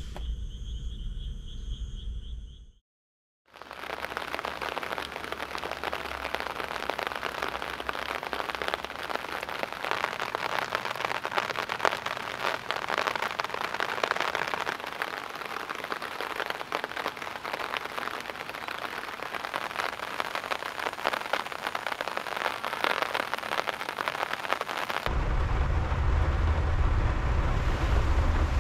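Steady rain falling on a puddle and gravel ground: a dense hiss made of many small drop taps. In the first couple of seconds crickets trill steadily, and near the end the rain gives way to a low rumble of wind on the microphone.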